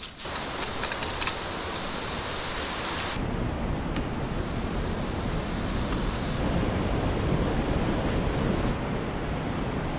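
Rushing river water: a steady, full rush of flowing water. Its tone and level shift abruptly about three, six and nine seconds in.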